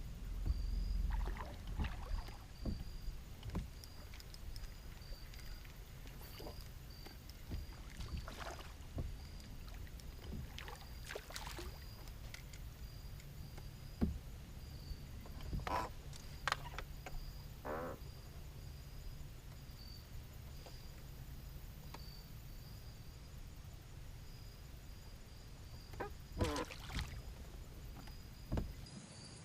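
Quiet outdoor lake ambience: a faint, high, steady chirring that pulses about once a second, typical of evening insects, under scattered knocks, taps and rustles of fishing gear being handled in a small boat.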